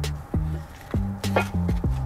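Background music with a beat: drum hits over held bass notes.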